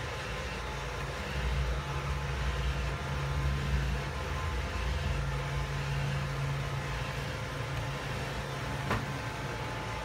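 Roomba 620 robot vacuum running: a steady hum of its vacuum motor and brushes, louder for most of the middle as it passes close by. A single sharp click near the end.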